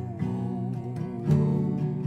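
Acoustic guitar strumming chords, with a strong strum about a second and a half in.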